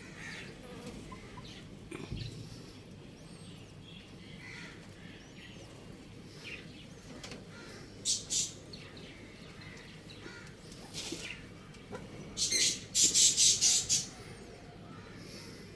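Birds chirping faintly, with a few short flurries of wing flapping and a quick, louder run of flaps near the end.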